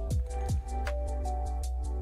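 Electronic background music: a held synth melody over a steady deep bass, with light hi-hat ticks and two deep electronic kick-drum hits in the first half second.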